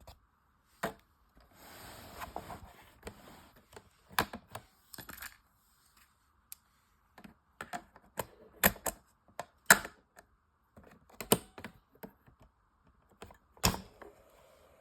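Sharp mechanical clicks and clunks from a tape recorder's controls and mechanism being operated by hand, coming irregularly a dozen or so times, with a brief rustling stretch about two seconds in.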